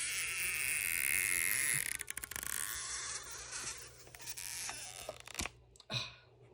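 Stretch-release adhesive pull tab under an iPhone 6s battery being slowly pulled out, making a steady creaking hiss, then a run of quick crackles about two seconds in, after which it dies down to a few faint ticks.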